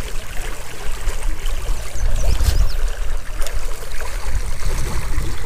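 A small trout stream running and rippling over shallow riffles, with a steady deep rumble underneath.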